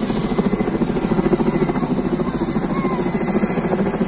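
Firefighting helicopter with a water bucket slung beneath, flying low overhead, its rotor beating in a fast, steady chop.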